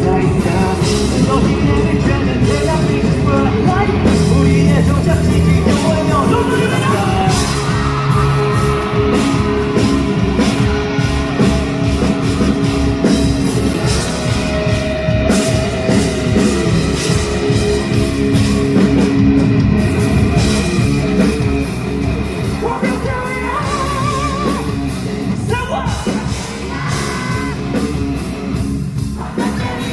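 Loud live rock band music in a large hall, with singing and shouts over the full band.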